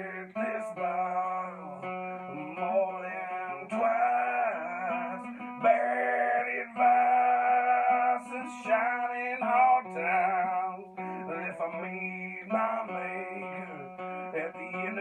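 Acoustic guitar played in chords while a man sings over it, holding long wavering notes through the middle.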